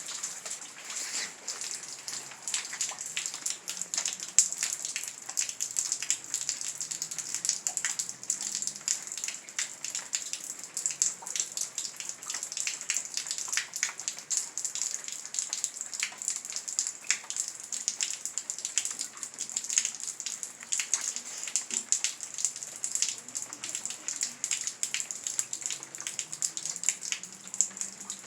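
Heavy rain falling: a steady hiss with many sharp, close-spaced drop spatters.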